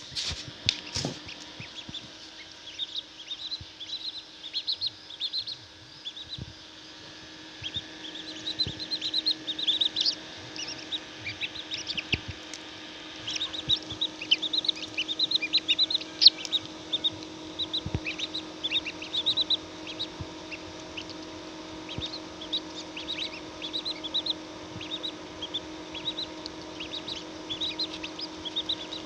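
Many chicks peeping in quick, overlapping high-pitched cheeps throughout, over the steady hum of the incubator machine.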